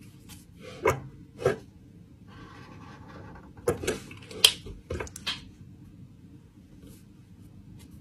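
Handling of pens at a desk: a series of short, sharp clicks and taps as a pen is picked up, uncapped and set down, with a brief rustle in between. The loudest tap comes about four and a half seconds in.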